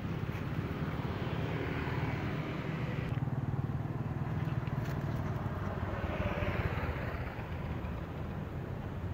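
Road traffic: motor vehicles passing on the road, a steady low rumble with a hiss that swells and fades twice.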